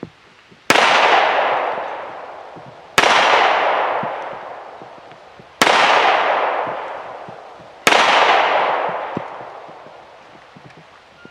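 Four pistol shots from a semi-automatic handgun, fired slowly about two to two and a half seconds apart, each followed by a long echo that dies away.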